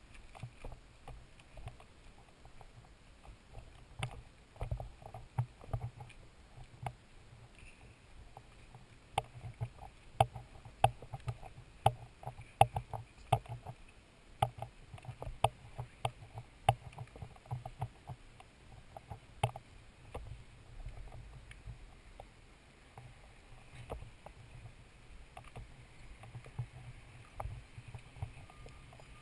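Irregular knocks and clicks, busiest from about nine to twenty seconds in, over a low rumble.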